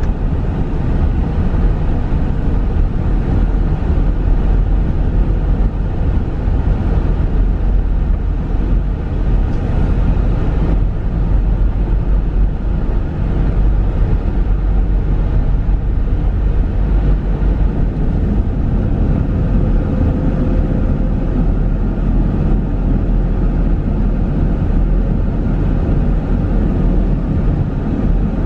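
Steady low rumble of a car's tyres and engine at road speed, heard from inside the cabin.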